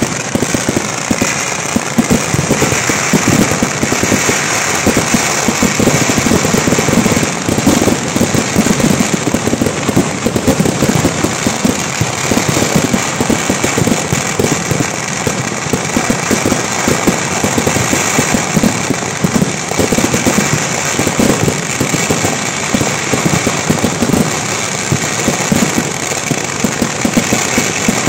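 Kerala temple-festival fireworks (vedikettu) firing in a dense, unbroken barrage: rapid, overlapping bangs and crackles with no pause.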